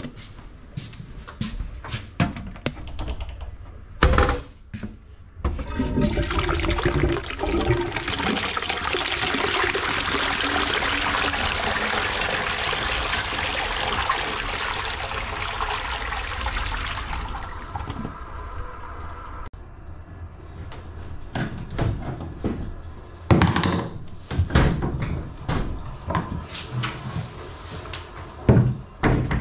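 A toilet flushing for about twelve seconds, water rushing into a bowl that already stands full of dirty water from a blocked drain. Scattered knocks and one loud thump come before the flush, and several loud bangs near the end as a wall panel is pushed.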